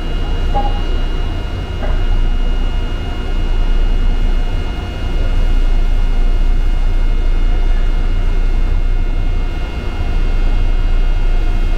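Seoul Subway Line 8 train running, heard from inside the passenger car: a steady low rumble with several steady high whining tones over it, swelling and easing slightly.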